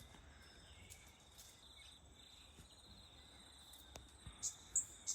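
Crickets chirping: a faint, steady high trill, with a few short, sharper high chirps near the end.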